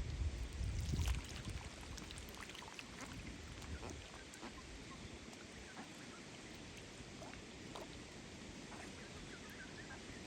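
Wild ducks calling quietly at close range, short quacks and chatter mixed with small clicks and splashes. A low rumble of wind or handling on the microphone in the first second or so.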